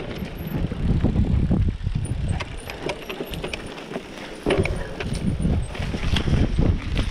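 Mountain bike rattling and knocking over a rough, rocky singletrack, with a constant low rumble from the tyres and the ride. The rumble eases off for a moment about three seconds in, then picks up again.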